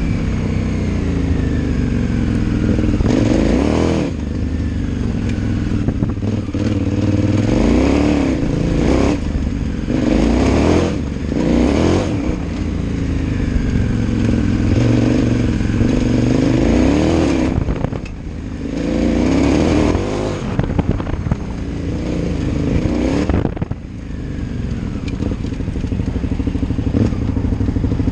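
KTM 990 Adventure R's V-twin engine pulling hard and backing off again and again, its pitch rising and falling through the gears, with two sharp throttle closures in the second half. Tyres crunch on gravel and loose stones clatter underneath.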